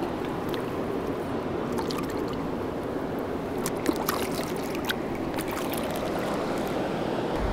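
Steady rush of a flowing river close by, with a few small splashes and trickles as hands and a chinook salmon move in the shallow water while the fish is released.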